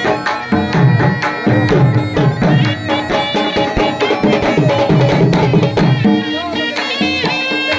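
Saraiki jhumar folk music: drums beating a steady, dense rhythm under a sustained melody line.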